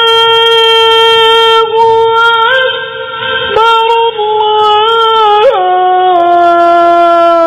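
A male muezzin chanting the azan, the Islamic call to prayer, solo: long held notes with ornamented turns. The voice steps up slightly after about two seconds, then drops to a lower held note a little past halfway.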